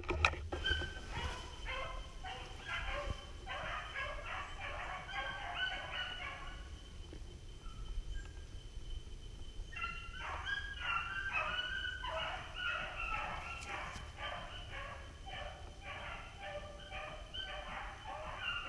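Beagles baying as they run a rabbit's scent trail, yelping at about three a second; the cry breaks off for about three seconds in the middle, then picks up again.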